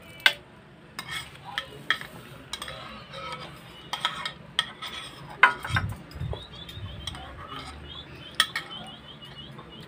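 Metal spoons clinking and scraping against ceramic soup bowls, a string of short sharp clinks.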